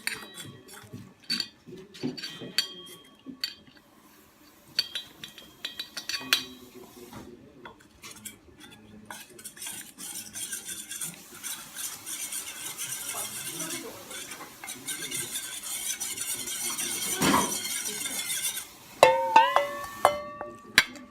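Kitchen utensil sounds while making gyoza filling: a spoon clinking against bowls, then a long stretch of stirring and mixing in a bowl, ending with a few clear ringing clinks.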